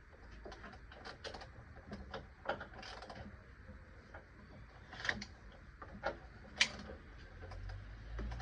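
Scattered metallic clicks and clinks of hand tools, a wrench and socket being worked on the engine, the sharpest a little after five seconds and about six and a half seconds in.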